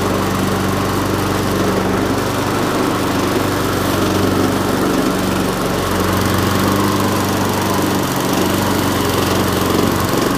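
Petrol rotary lawnmower engine running steadily at full speed without hunting, its governor spring hooked into a second hole for more tension.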